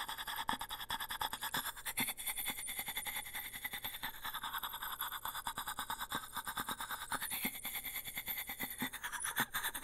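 Music with a fast, scratchy pulsing texture, mostly high-pitched.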